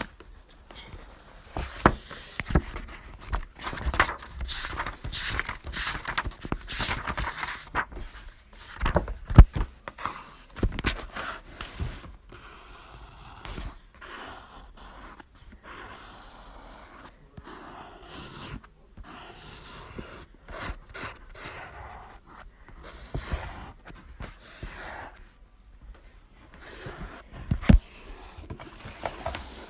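Exam-room noises in a small room: sniffing and heavy breathing mixed with pen scratching on paper, in an irregular string of short bursts. A sharp knock stands out about nine seconds in, and another near the end.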